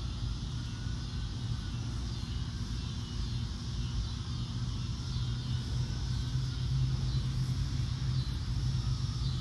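Steady low rumble with a higher hiss above it, and faint rising-and-falling swishes every second or two.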